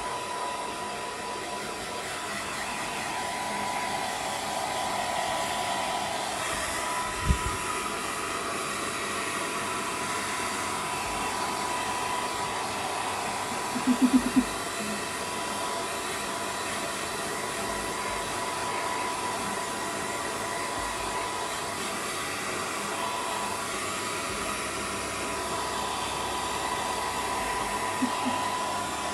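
Hair dryer running steadily with a constant high whine. A single knock about a quarter of the way through, and a quick cluster of short, sharp pitched sounds about halfway.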